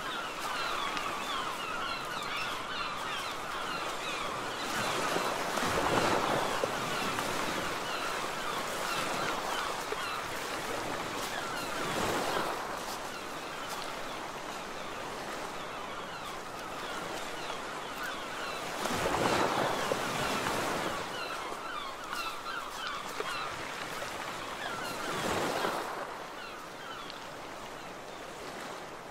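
Sea waves breaking on the shore, swelling and falling away four times about six seconds apart, over a dense, continuous chatter of many bird calls.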